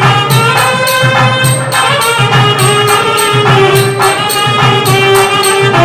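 Instrumental music: a melody of long held notes over a steady, quick percussion beat.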